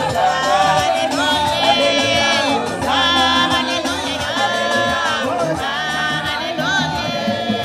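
Large crowd of women singing a worship song together, their voices holding long notes and sliding between them.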